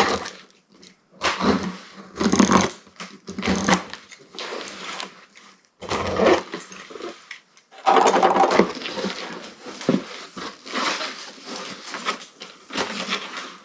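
A package being opened by hand: a series of irregular ripping and rustling bursts from tape, cardboard and packing material, with short pauses between them.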